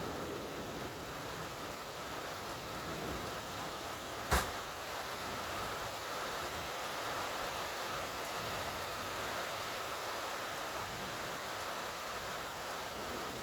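Steady rain of a summer thunderstorm, an even hiss, with one sharp click a little over four seconds in.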